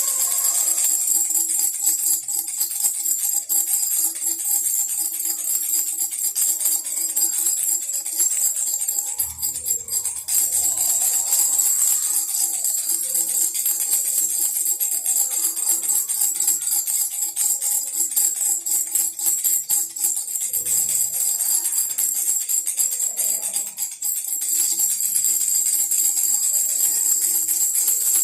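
Baby rattle shaken non-stop, a dense, bright jingling over a musical backing, with a low drum thump now and then.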